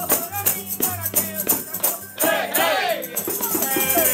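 A hand-held frame drum, tambourine-style, beaten in a steady rhythm of about four strikes a second under group singing. A single voice wavers loudly about two seconds in.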